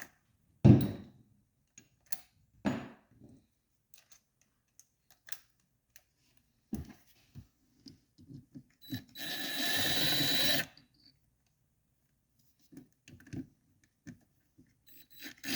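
Tool work on a dismantled engine: a loud thump, scattered clicks and knocks, and, past the middle, a power tool running for about a second and a half while the stator bolts are taken out.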